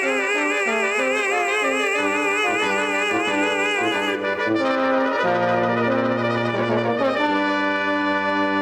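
Tenor voice holding a long note with wide vibrato over a brass quintet; about four seconds in the voice stops and the brass quintet plays on alone in steady, sustained chords.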